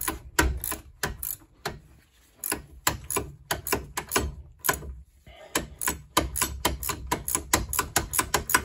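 Ratcheting wrench clicking in rapid, even strokes as it backs out a brake caliper bolt that was seized by rust and heat and has just broken loose. The clicks stop briefly twice and run faster in the last few seconds.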